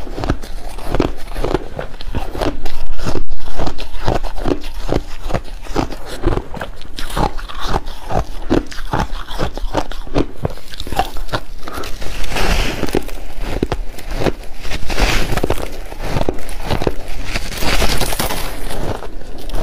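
Close-miked chewing and biting of soft crushed ice: a fast, steady run of crunches, several a second, with a few louder, hissier crunches of fresh big bites in the second half.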